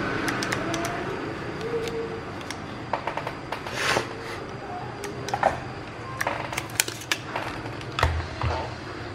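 Scattered light clicks and taps of small tools and parts being handled at a repair bench, with a short swish about four seconds in.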